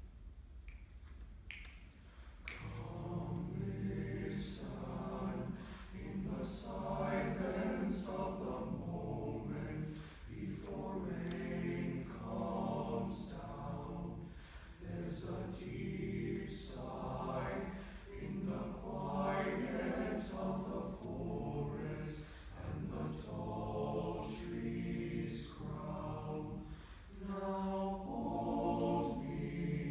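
High-school boys' choir singing in parts; the voices come in about two and a half seconds in and carry on in long phrases with short breaks between them.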